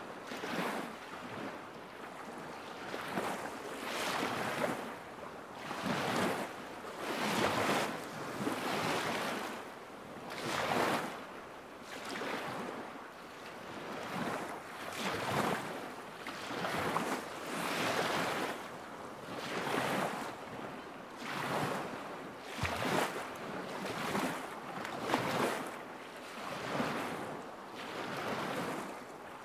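Small lake waves lapping against the shore in a steady rhythm, a soft splash about every second and a bit.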